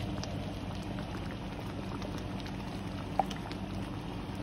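Onion gravy bubbling in a skillet of pork chops, with small scattered pops over a steady low hum, and one sharper tick about three seconds in.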